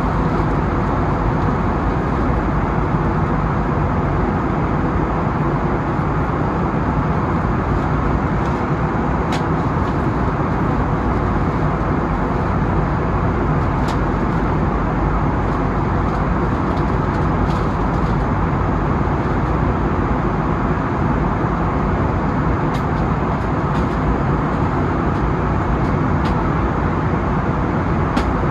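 Steady jet engine and airflow noise heard from inside the cabin of an Airbus A320neo: an even, unbroken rumble and roar with no rise or fall.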